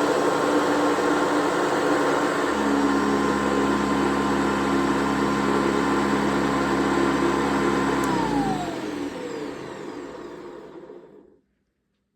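A 1990 Hoover Guardsman upright vacuum cleaner runs steadily with a motor whine. About eight seconds in it is switched off, and its pitch falls as the motor spins down to a stop over about three seconds.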